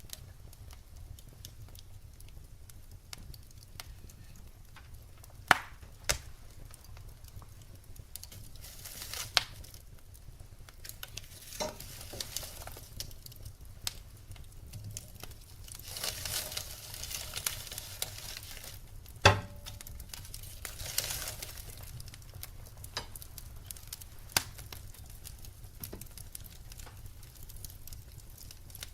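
Firewood burning: a steady crackle with sharp pops every few seconds, the loudest about two-thirds of the way through, and spells of hissing.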